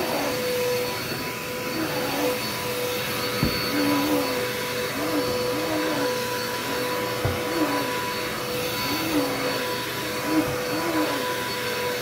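Bagless upright vacuum cleaner running on carpet: a steady motor whine over rushing airflow. From a few seconds in, a lower hum rises and falls in pitch over and over as the machine is pushed back and forth, with a few short knocks.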